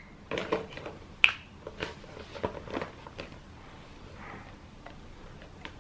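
Handling noise of a small leather handbag being held open and its contents shifted: scattered light clicks and rustles, with one sharper click about a second in.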